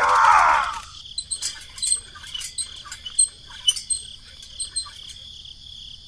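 Steady high-pitched insect chirring, with scattered sharp high clicks. A loud voice-like sound fills the first second.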